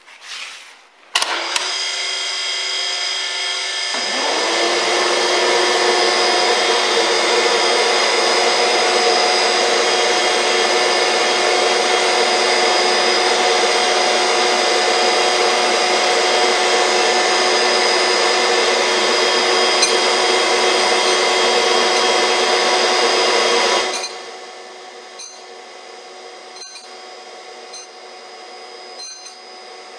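Surface grinder's spindle motor switched on and running with a steady whine and hum that grows louder a few seconds in. Near the end the level drops sharply to a quieter running sound with a few light ticks.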